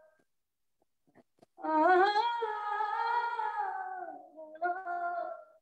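A woman singing an unaccompanied folk song: after about a second and a half of silence, one long held note that sinks in pitch at its end, then a shorter phrase.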